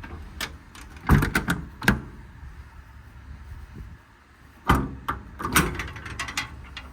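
Metal service-body compartment door and its latch being worked: two groups of sharp clicks and clunks, one about a second in and another from near five seconds to six and a half.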